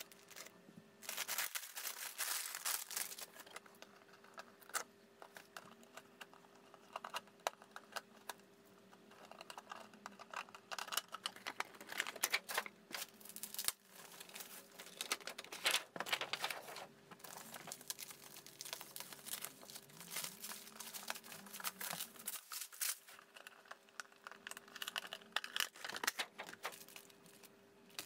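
Clear plastic bags and bubble wrap crinkling and rustling in irregular bursts as packaged goods are unwrapped by hand.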